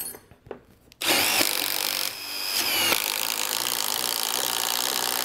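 Milwaukee M18 impact driver boring a half-inch twist bit into a knotty wooden board, starting about a second in. It runs hard and steady, its motor whine dipping briefly under load a couple of times.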